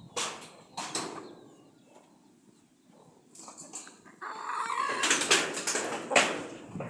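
A flock of chickens clucking, with noisy bursts of wing flapping as they hurry toward someone they expect to feed them. The flock is quieter for a couple of seconds, then grows busier about four seconds in.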